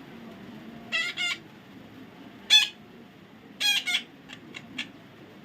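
A parrot giving a run of short harsh squawks: two close together about a second in, a louder single call in the middle, another pair after it, then three brief chirps near the end.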